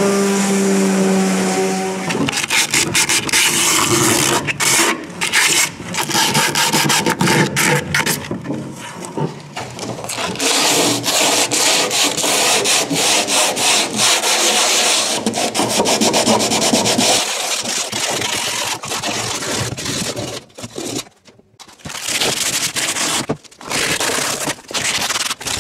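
Orbital sander motor running with a steady hum, stopping about two seconds in. Then hand sanding: sandpaper rubbed back and forth in irregular strokes over the epoxy-coated plywood inside the canoe hull, with a short pause about 21 seconds in.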